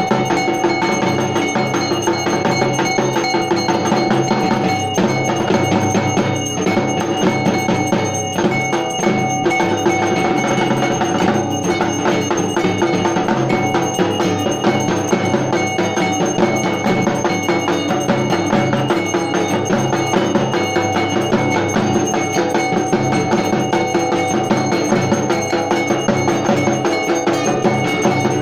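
Dhak drums beaten in a rapid, unbroken rhythm, with metal bells ringing steadily over them.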